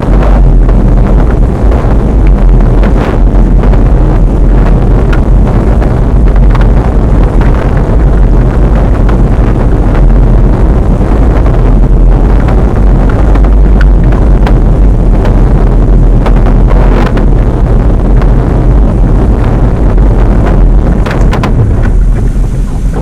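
Wind buffeting the microphone: a loud, steady rumble with scattered crackles.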